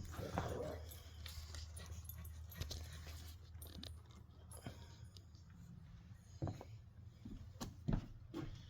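A dog whimpering faintly, with scattered light clicks and knocks over a steady low hum.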